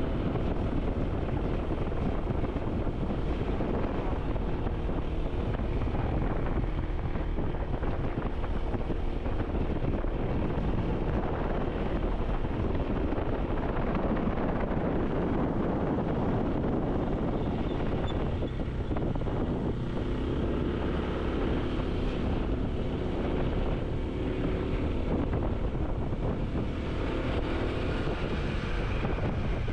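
Vehicle travelling along a road: steady engine and road noise with wind rushing over the microphone, and an engine tone that shifts in pitch now and then.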